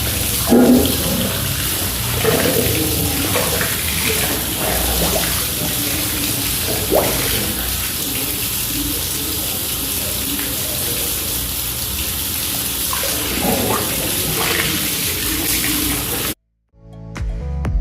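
Water running steadily, as from a tap or hose, with faint music beneath. Near the end it cuts off abruptly and, after a brief silence, music with a steady beat begins.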